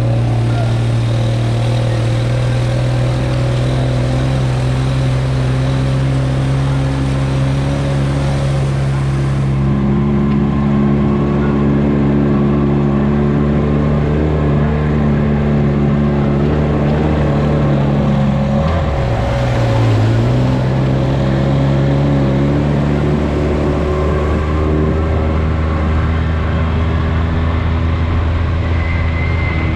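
Polaris RZR side-by-side's engine running at a steady speed while driving. About nineteen seconds in the revs drop briefly, then pick back up.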